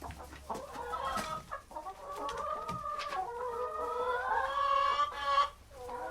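Chickens calling: a few short clucks, then one long drawn-out call lasting about three seconds that rises in pitch near its end and cuts off. Another call starts just at the end.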